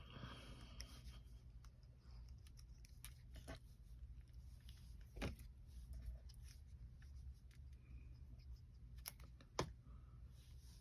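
Near silence over a low hum, with faint paper rustling at the start and a few light taps and clicks, the sharpest about five and nine and a half seconds in: small cut paper pieces being handled and set onto a handmade card.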